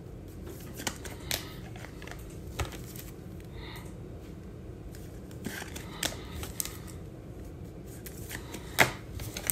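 Trading cards and clear plastic card holders being handled on a table: a few scattered light clicks and taps, one sharper tap near the end, over a faint steady low hum.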